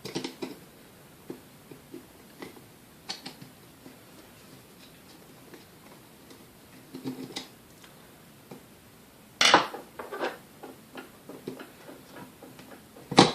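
Scattered light metallic clicks and clinks as screws are taken out of a KitchenAid A9 coffee mill's grinder and the small parts and tools are handled. There are two louder sharp clanks, one about nine and a half seconds in and one at the very end.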